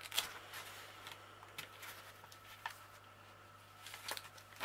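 Faint rustling and a few small clicks of a paper notebook being handled and written in with a pen, growing busier near the end.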